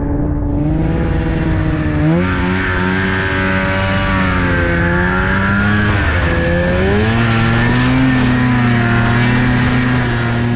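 Snowmobile engine running under throttle, its pitch rising as it accelerates about two seconds in and again around seven seconds in, with a steady rushing hiss throughout.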